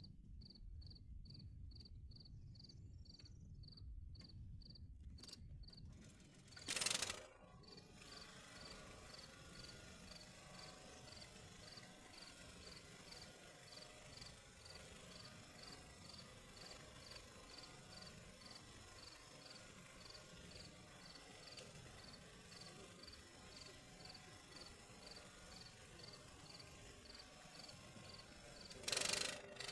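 An insect chirping steadily, about three short high-pitched chirps a second, over faint low background noise. A brief loud burst of noise about seven seconds in, and another loud noise near the end.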